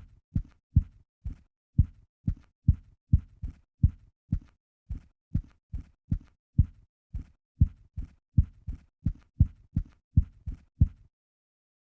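Typewriter keys striking one after another at an uneven typing pace, about two strokes a second, each a dull thud. The strokes stop briefly near the end.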